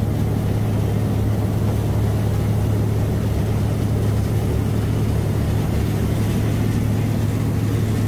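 Boat's engine running steadily under way with the rush of water along the hull: a loud, unchanging drone over a hiss of churning wake.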